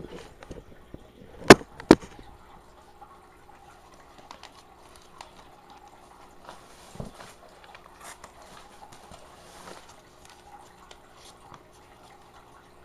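Aquarium sounds: two sharp knocks in quick succession about a second and a half in, then faint water trickling and bubbling with scattered small ticks over a steady low hum.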